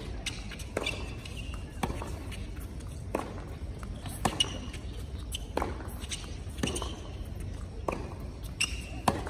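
Tennis rally on a hard court: racket strikes and ball bounces, a sharp pop about every second, over a low steady crowd hum.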